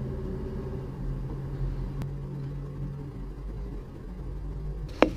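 Low, steady rumble of city street traffic through an open window, with a steady engine hum for the first three seconds and one sharp click about five seconds in.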